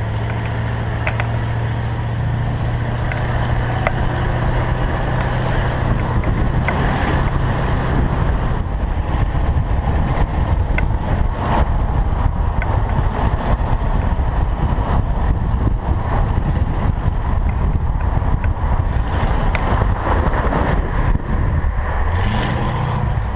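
Ford Gran Torino driving along the road, its engine holding a steady low note at first, then mostly covered by wind and road rush over the microphone. Near the end the engine note rises and drops as the car revs.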